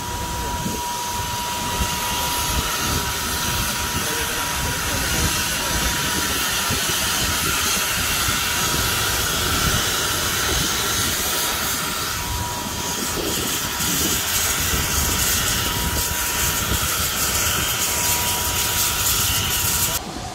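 Steady jet turbine noise: a loud hiss with a thin steady whine, dropping off suddenly near the end.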